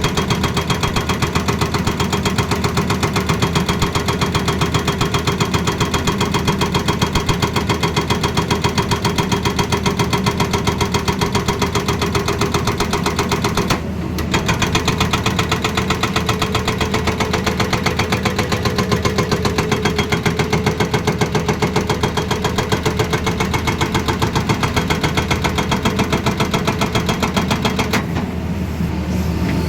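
Excavator-mounted hydraulic breaker hammering in a rapid, steady rhythm, with a short break about halfway through and stopping near the end.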